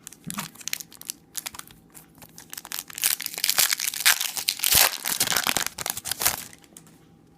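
Foil trading-card pack wrapper crinkling and tearing as it is opened, loudest for a few seconds in the middle, after light scattered clicks of handling.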